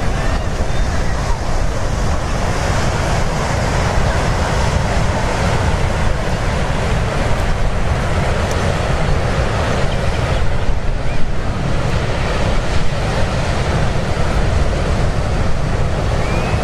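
Ocean surf washing onto the beach in a steady rush, with heavy wind buffeting the microphone in a low rumble.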